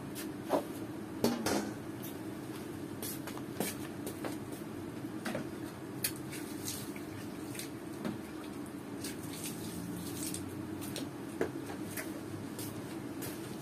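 Chicken feet and drumsticks in palo broth simmering in a pot: scattered small pops and clicks over a steady low hum.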